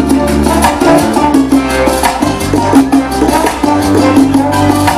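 Salsa music playing loud through a sound system, with a steady percussion beat under the instruments.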